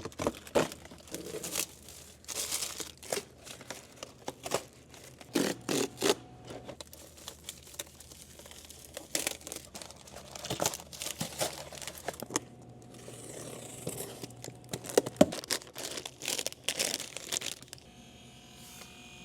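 Packaging being torn open and handled: irregular tearing, crinkling and scraping strokes, with one sharp knock near the end.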